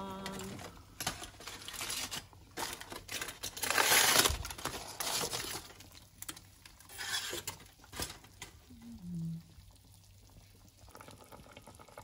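Aluminium foil crinkling as it is peeled off a cooking pot, in several rustling bursts, the loudest about four seconds in.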